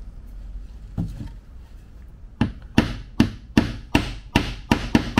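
Hammer tapping a small nail into glued plywood frame pieces on a workbench. After a single soft knock, it strikes a quick, even series of about eight blows, roughly three a second, starting about halfway through.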